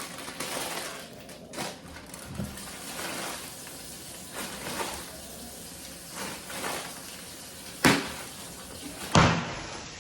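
Kitchen faucet running as green beans are rinsed under it, with two sharp knocks near the end.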